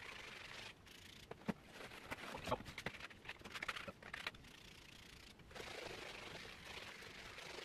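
Fabric protection coating being sprayed onto a car floor mat: a steady spray hiss that stops abruptly in the first second, a few seconds of light clicks and rustling, then the spray hiss starting again for the last two seconds.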